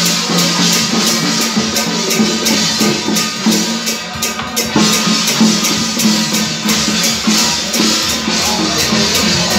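Tiaogu drum-dance troupe's small hand drums and brass cymbals struck in a fast steady beat, with a sustained melody from the accompanying wind instruments over it.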